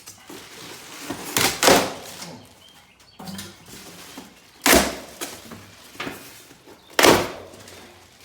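Heavy thumps and knocks from a large benchtop planer and its packing being handled and set down. There is a quick pair of knocks about a second and a half in, then two single loud thuds a couple of seconds apart later on.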